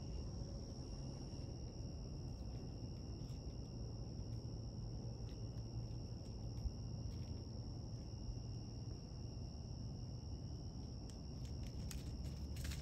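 Insects trilling steadily in one high, unbroken tone over a low background rumble, with a few light clicks near the end.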